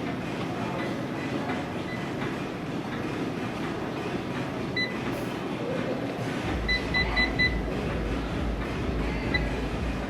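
Gym ambience: steady noise of exercise machines and the room. There is a short electronic beep about five seconds in, then four quick beeps a couple of seconds later. A deep low rumble sets in as the beeps begin.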